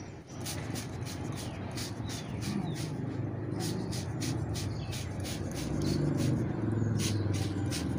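Small handheld trigger spray bottle being squeezed over and over, each pull a short hissing spritz of mist, about three a second with a couple of brief pauses. A steady low rumble runs underneath and grows louder in the second half.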